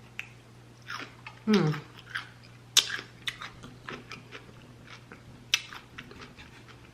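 Close-miked chewing of crunchy raw cucumber, with a few sharp crisp crunches, two of them loudest, and a short voiced "mm" about a second and a half in. A low steady hum sits underneath.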